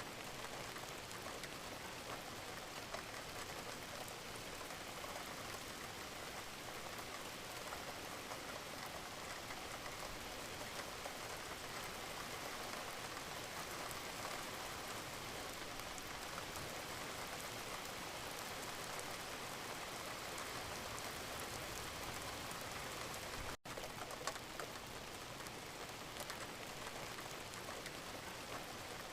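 Steady rain falling, a dense patter of drops on a surface that does not let up. About three-quarters of the way through, the sound cuts out for a split second and comes straight back.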